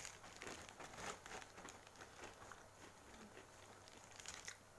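Faint, irregular crunching of a person chewing a crunchy fried snack, homemade chakli, with the mouth closed; a couple of slightly louder crunches near the end.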